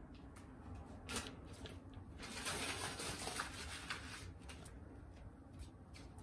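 Sticky lint roller crackling as it is rolled and lifted, with a longer crackly hiss from about two to four seconds in and a few light clicks and knocks around it.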